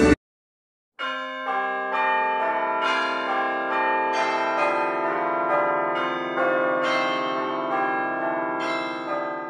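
A run of bell-like chimes starts about a second in: clear pitched notes struck one after another roughly every half second. Each note rings on, so they pile up, and the chimes fade out near the end.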